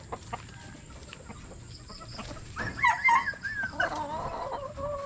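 Chickens clucking, with one loud drawn-out call about two and a half seconds in that bends in pitch and then holds a steady note for over a second.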